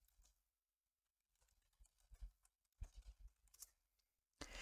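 Near silence, broken by a few faint computer-keyboard keystrokes a little after two seconds in and around three seconds in, then a short soft hiss just before the end.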